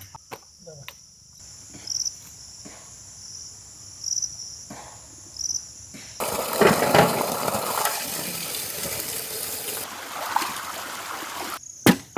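Insects chirring steadily, high-pitched. From about six seconds in, a louder rushing hiss covers them for several seconds and then stops.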